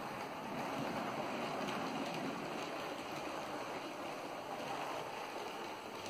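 OO gauge model train, a Class 70 diesel hauling coaches, running past on the layout: a steady rumble of wheels on the rails and the motor's whir. The sound swells a little about a second in and eases slightly near the end as the coaches pass.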